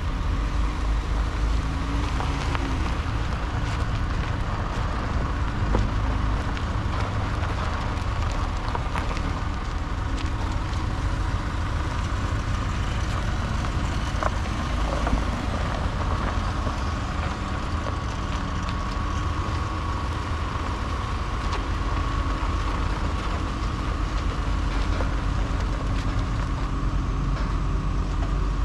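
2016 Dodge Grand Caravan's 3.6-litre V6 running, a steady low rumble with a few faint clicks.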